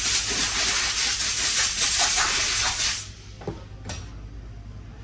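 A pressurized jet hissing steadily as a transmission bearing is cleaned, cutting off about three seconds in, followed by a couple of light knocks.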